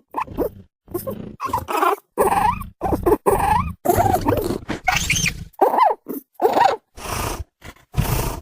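Designed dinosaur creature sound effects for Ferganocephale, a small pachycephalosaur: about a dozen short animal calls in quick succession with brief silences between, several bending up and down in pitch.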